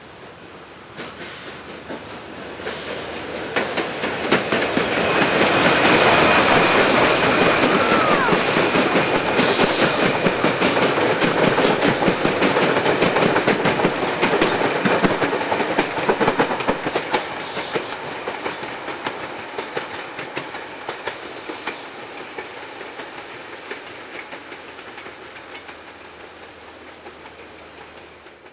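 Steam-hauled passenger train passing and running away, its wheels clicking over the rail joints. The sound swells over the first few seconds, is loudest from about five to sixteen seconds in, then fades steadily as the train draws away.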